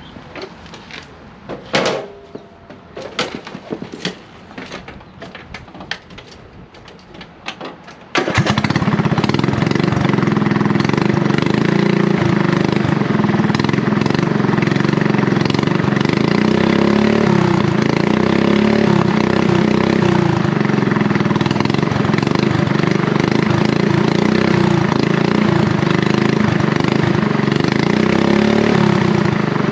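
Light clicks and knocks for about eight seconds, then the mower's Briggs & Stratton lawn-tractor engine comes in suddenly and runs steadily and loudly.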